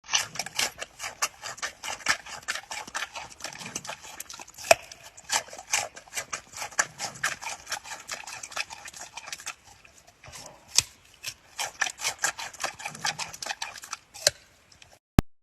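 Rapid, irregular tapping and clicking, several sharp taps a second, with a short lull about two-thirds of the way in, then a single sharp click just before the end.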